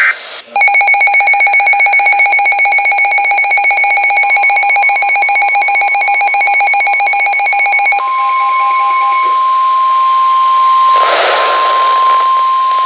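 Weather radio receiver sounding an alert: a rapid, evenly repeating beep for about seven seconds, then the steady single tone of the NOAA Weather Radio warning alarm, with a burst of static near the end.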